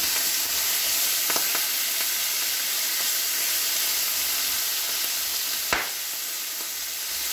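Diced bacon sizzling steadily in a frying pan, stirred with a spatula, with a few light knocks early on and one sharp pop about two-thirds through: moisture in the bacon spitting in the hot pan.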